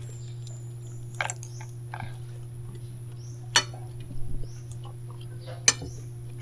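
Cutlery clinking against a plate a few times, each a short sharp click, over a steady low hum.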